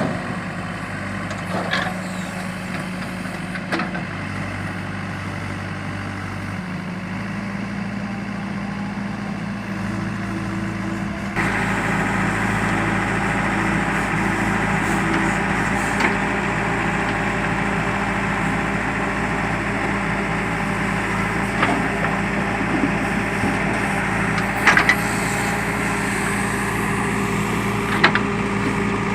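JCB backhoe loader's diesel engine running steadily, picking up revs and getting louder about a third of the way in, then holding there. A few short knocks or clanks are heard over it.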